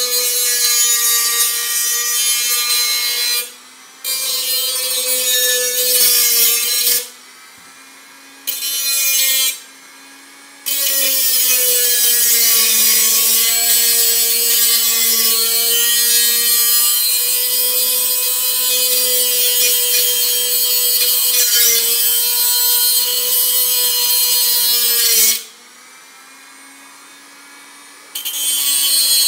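A Black+Decker rotary tool with a small cutoff disc is cutting into the thin steel wall of a tin can: a harsh, high grinding hiss over the steady whine of the tool's motor. The cutting noise stops several times for a second or two, and the motor pitch sags a little while the disc is loaded.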